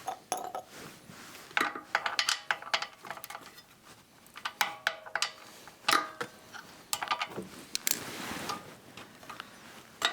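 Metal hand tools clicking and clinking against a small engine's carburetor as it is opened up to let out the old fuel: clusters of sharp metallic clicks with a short ring to them.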